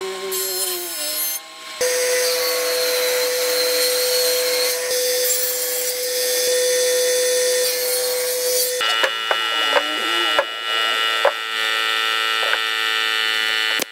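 Table saw running and cutting wood boards, a steady whine under the noise of the cut. About nine seconds in the sound changes to a different steady machine hum with a few scattered knocks of wood.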